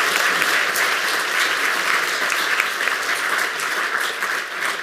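Large audience applauding steadily, many hands clapping, easing slightly near the end.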